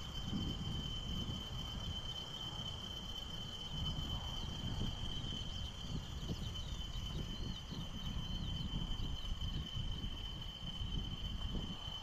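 Freight train passing across open fields: a low, uneven rumble of the wagons. A steady high-pitched whine holds throughout.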